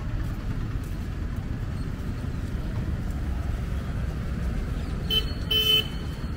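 A vehicle horn gives two short honks about five seconds in, the second a little longer, over a steady low street rumble.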